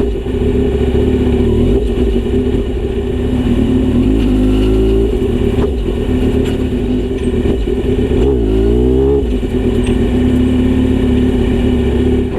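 Kawasaki Z900RS inline-four with a Misty Kintaro short-pipe muffler and 70 mm silencer, idling steadily. The throttle is blipped twice, about four seconds in and again about eight seconds in, the exhaust pitch rising and falling each time.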